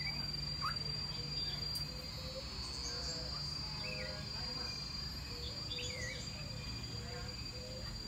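Aviary ambience: a steady high-pitched insect drone, scattered bird chirps and short sweeping whistles, and a run of repeated short low notes.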